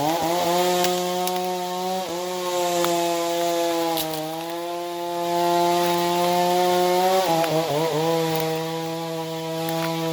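Chainsaw revving up and running at full throttle while cutting wood, its pitch sagging briefly a couple of times as the chain bites in under load.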